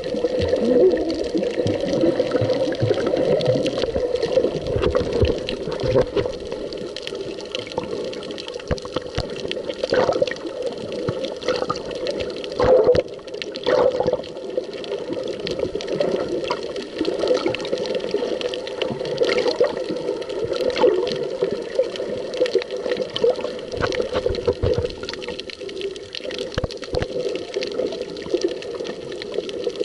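Water heard through a camera held underwater: a muffled, steady sloshing and rushing, with a few sharp knocks and clicks around the middle.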